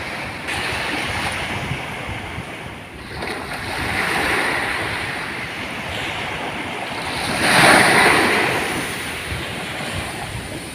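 Ocean surf breaking on a sandy beach in rising and falling swells, the loudest wave crashing about seven and a half seconds in.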